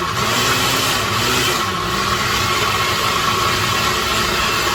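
Countertop blender running at speed, its motor churning whole tomatoes, garlic and vinegar into gazpacho; the motor's pitch wavers in the first couple of seconds as it works through the chunks, then holds steady.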